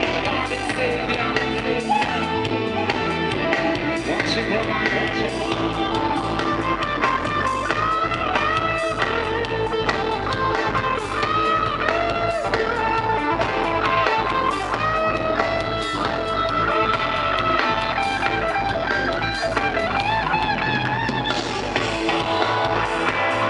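Live reggae band playing an instrumental passage, with electric guitar lines over bass and drums.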